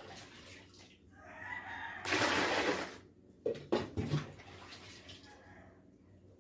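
Water scooped out of a washing machine tub with a small container: one splash of about a second, followed by a couple of light knocks of the container. The machine is being drained by hand because its drain pump no longer empties the water.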